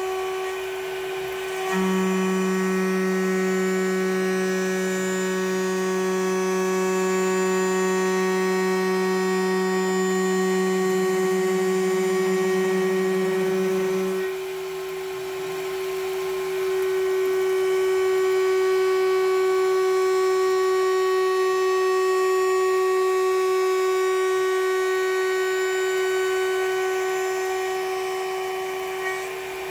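CNC mill spindle driving a 10 mm insert mill through a heavy facing cut in 4140 alloy steel: a steady pitched whine of the cutter in the cut. The sound changes and dips briefly about a second and a half in, again around fourteen seconds in, and near the end, as the tool changes direction. The change at each direction reversal may mean the tool doesn't like entering the cut in certain conditions, though the machinist is not sure.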